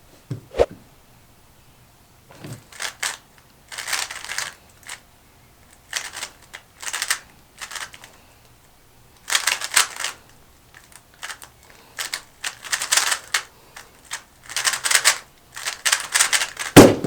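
Plastic speedcube being turned fast, rapid clacking in bursts with short pauses between. There is a knock about half a second in and a louder thump near the end.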